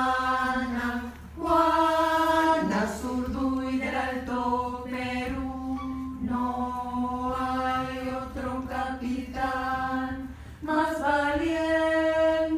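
Women's choir singing a cappella in long held notes, with short breaks between phrases.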